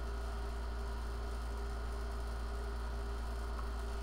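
Steady low electrical mains hum with a faint hiss.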